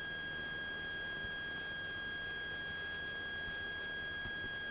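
A steady high-pitched electronic tone with evenly spaced overtones, holding one pitch throughout, over a faint low hum on the light aircraft's headset intercom audio line during the take-off climb.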